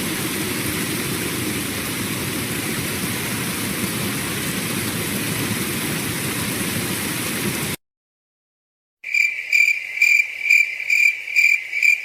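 Two meme sound-effect clips in a row: about eight seconds of steady hiss-like noise that cuts off suddenly, then, after a second of silence, a fast run of evenly spaced high chirps, about three a second.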